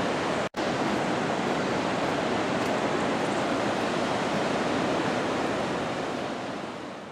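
Steady rushing roar of the 80-metre Arenal waterfall, with a split-second break about half a second in and fading away near the end.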